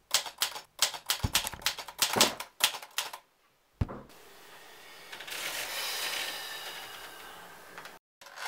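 Quick, irregular clicks of keys being typed, bunched in short runs for about three seconds. Then a soft rushing noise swells and fades over about four seconds.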